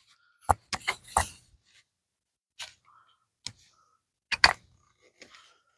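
Scattered light clicks and taps at irregular intervals, from handling wire as it is threaded back through the wooden nesting feeder.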